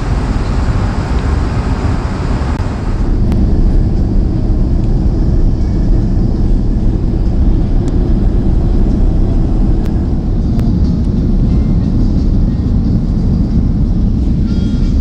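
Steady rumble of an Airbus A330's cabin in flight: engine and airflow noise. About three seconds in, the higher hiss drops away and the low rumble gets a little louder.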